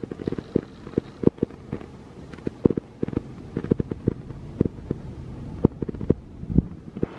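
Irregular crackling and dull clicks from a cat's fur rubbing and brushing directly against the phone's microphone during close petting.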